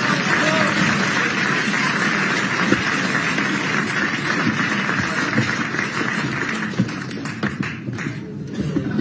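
Studio audience cheering and clapping, dying down about seven seconds in, with a few light taps near the end.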